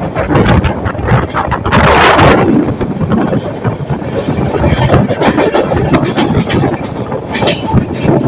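Express train running through a station at about 40 km/h: wheels clattering over rail joints and points, with rushing wind noise and a brief louder hiss about two seconds in.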